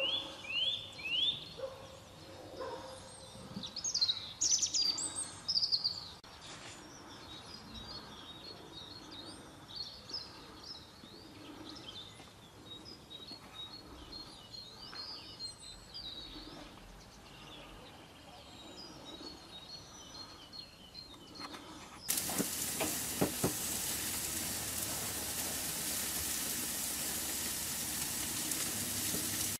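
Small birds chirping and singing, with three quick rising calls at the start and a louder flurry about four to six seconds in. About 22 seconds in this gives way abruptly to a steady hiss of salmon and meat sizzling on a portable grill.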